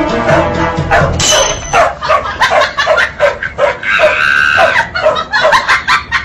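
Dogs barking and yapping in quick repeated bursts, about two to three a second, with a higher, drawn-out cry about four seconds in.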